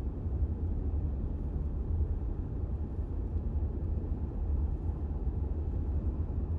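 Steady low rumble of a vehicle driving along a highway, road and engine noise heard from inside the cab.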